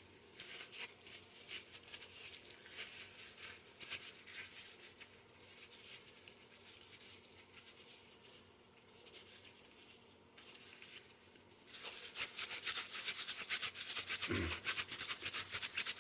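Rapid scratchy rubbing and scraping as microwave parts are worked by hand. The strokes grow denser and louder for the last few seconds, with a brief dull thump in among them.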